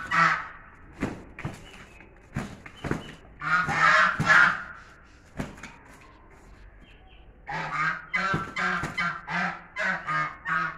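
Chinese geese honking repeatedly while two of them fight, in short runs of harsh calls. The loudest burst comes about four seconds in, and a quick series of honks, about three a second, runs through the last few seconds.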